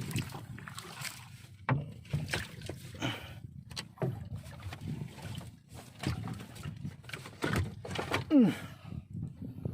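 Irregular knocks and clatter aboard a small fishing boat as a gillnet is paid out over the side. A short falling sound comes near the end and is the loudest moment.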